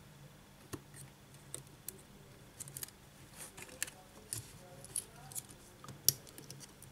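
Faint, scattered clicks and taps of metal tweezers and fingertips on a smartphone's circuit board and frame as the touchscreen flex cable is pressed onto its board connector, the sharpest click about six seconds in.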